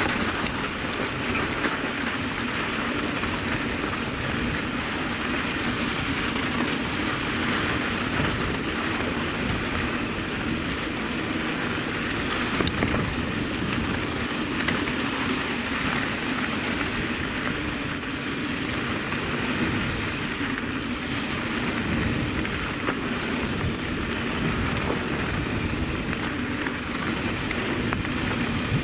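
Mountain bike riding fast on a sandy dirt trail: a steady rush of wind on the microphone mixed with tyre noise on the sand and dirt, with scattered small knocks from bumps.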